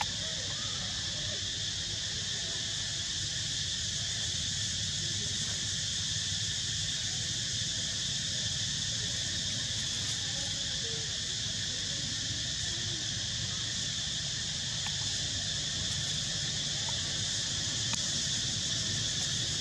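Steady high-pitched chorus of insects buzzing without a break, over a low steady rumble of outdoor background noise.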